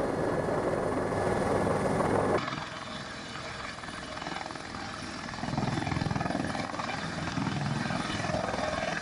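Helicopter hover-taxiing low just before landing, its rotor and turbine noise steady. The sound drops abruptly to a quieter level about two and a half seconds in.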